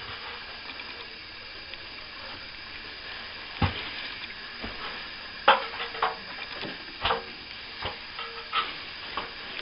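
Hand tools working plaster on a ceiling: a steady, soft scraping and rubbing, broken by several short knocks and taps.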